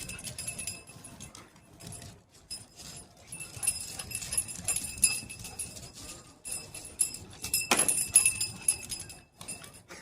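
Small metal bells jingling in irregular bursts, with clicks and clatter, loudest just before the last second or so.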